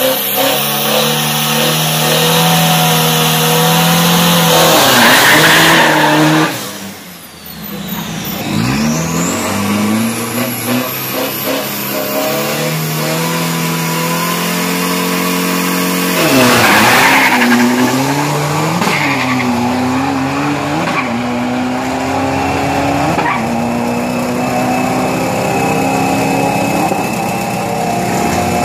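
Pickup truck's 1.9-litre turbo-diesel engine on a drag strip. It revs up with a burst of tyre noise about five seconds in, then holds steady revs. About sixteen seconds in it launches hard and climbs through several gear changes before fading to a steadier, more distant drone.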